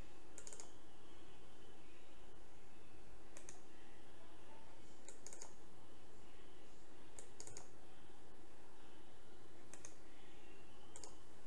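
Computer mouse buttons clicking: single clicks and quick double-clicks every couple of seconds, over a steady background hiss.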